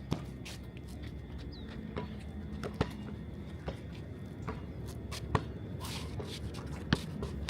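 A basketball bouncing on an outdoor court during play: a handful of sharp, irregularly spaced bounces over a steady low background rumble.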